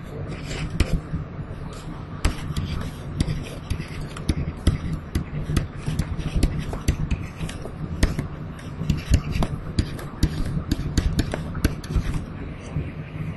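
Irregular sharp taps and light scratches of a pen writing on a tablet, over a steady low hum.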